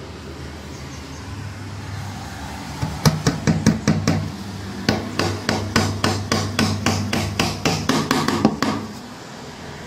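Hammer driving small nails through 8 mm marine plywood into a wooden frame: a quick run of light taps starts about three seconds in, and after a short pause a longer run of steady strikes, about five a second, stops near the end.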